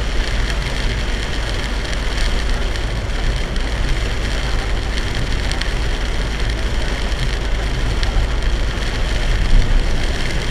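Heavy rain beating on a moving car's roof and windshield, heard inside the cabin over a steady low rumble of tyres and engine on the expressway.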